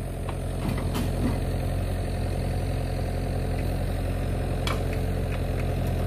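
Excavator's diesel engine running steadily, with a few sharp clicks over it.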